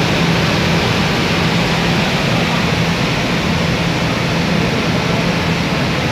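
Floodwater rushing out through an open dam spillway shutter in a loud, steady rush of falling water and spray, with a constant low hum underneath.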